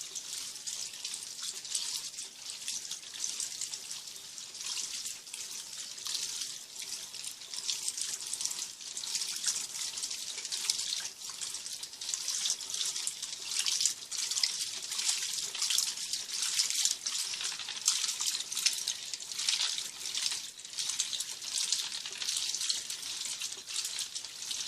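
Top-loading washing machine agitating a load of jeans in soapy water: a continuous sloshing and swishing of water and fabric in the tub.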